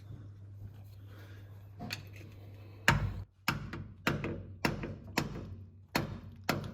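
Hammer tapping on a stuck Holden Commodore differential cover to break it free of its gasket: a quiet start, then about eight sharp knocks, roughly two a second, beginning about three seconds in.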